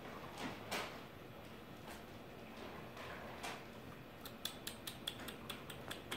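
Faint, small sharp clicks as Bengal kittens move about on a hard kitchen floor around their food bowls and litter box. There are a few scattered clicks, then a quick run of about six a second over the last two seconds.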